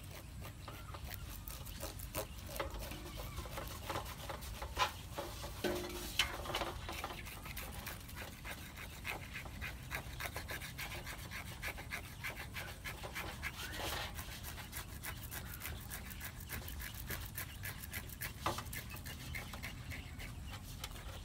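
A knife blade scraping the skin and scales off a water snake with fast, repeated rasping strokes, and a few sharper knocks against the basin a few seconds in.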